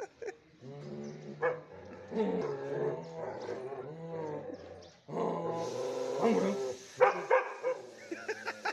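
Bhote dog vocalizing in long, drawn-out howl-like whines that waver up and down in pitch, with a short break about five seconds in.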